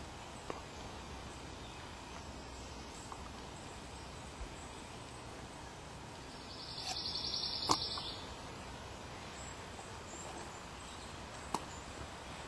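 Steady, faint outdoor background noise with a few light clicks. About seven seconds in, a high, rapidly pulsing trill sounds for just over a second.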